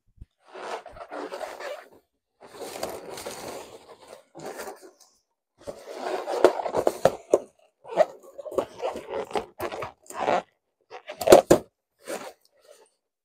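Inflated latex balloons rubbing against each other in irregular bursts as a small balloon is worked onto a larger base balloon by its neck. The sharpest bursts come about six seconds in and again near the end.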